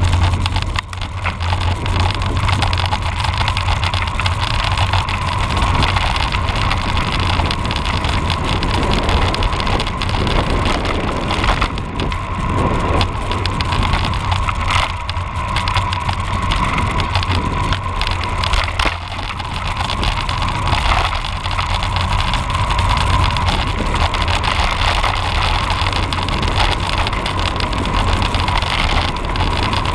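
Cross bike being ridden along a road: tyre rolling noise with a steady hum, and wind rumbling on the microphone.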